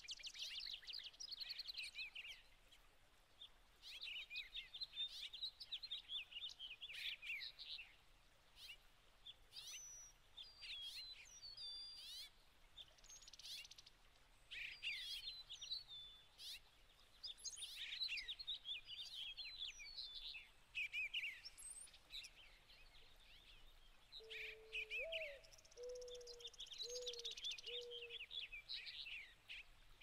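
A flock of European starlings and red-winged blackbirds chattering: repeated bursts of rapid high chirps, clicks and short whistles. Near the end comes a low cooing phrase of one held note, a quick upward slide and three short notes.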